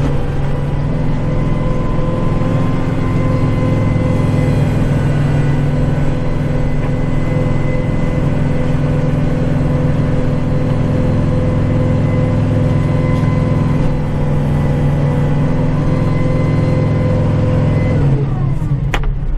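Kubota tractor's diesel engine running steadily under load with the PTO-driven snowblower, heard from inside the cab, with a steady whine over the drone. Near the end the engine note drops and the whine stops, followed by a sharp click, as the snowblower is shut down.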